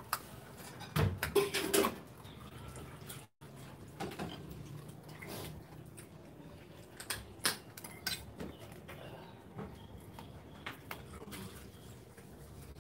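Scattered clinks and scrapes of a fork on a plate, mixed with knocks of dishes and pots being handled.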